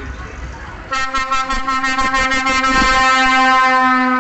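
A vehicle air horn sounding one long, loud, steady blast, starting about a second in.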